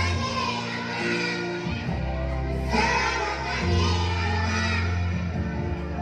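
A group of young children singing together over a backing music track, their voices fainter than the accompaniment.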